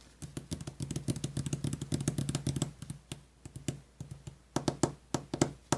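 Small motorised die-cutting machine running: a steady motor hum with rapid clicking for a few seconds, then stopping and starting again with sparser clicks near the end.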